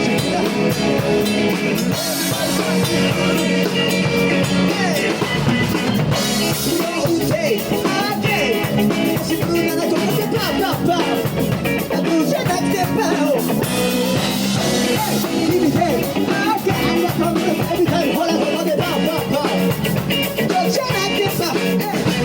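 Live band playing a rock song, drum kit driving a steady beat, with a singer's voice over it.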